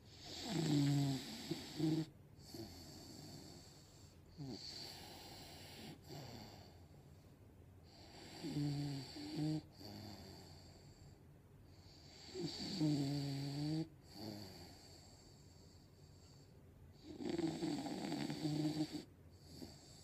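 English bulldog snoring in its sleep: four loud, pitched snores a few seconds apart, with fainter breaths between them.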